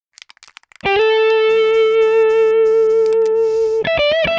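Electric guitar music. A few scratchy clicks lead into a long held note with a rhythmic hiss above it, and quicker notes follow near the end.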